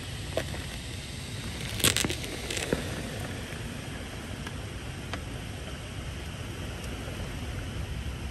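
Steady hiss of heavy rain in a night thunderstorm, with a short cluster of sharp clicks about two seconds in and a couple of fainter single clicks.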